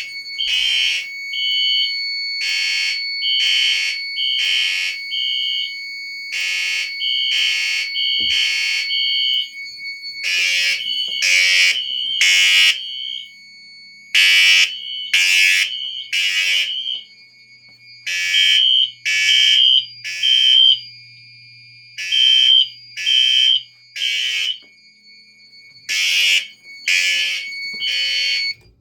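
Fire alarm horns sounding in evacuation mode, loud pulsed blasts. Through the second half they fall into repeating groups of three short blasts with a pause between groups, the temporal-three evacuation pattern, over a faint steady high tone.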